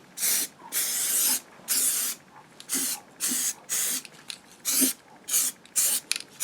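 Hammerite paint being sprayed in many short hissing bursts, on and off about twice a second, laying a coat of paint.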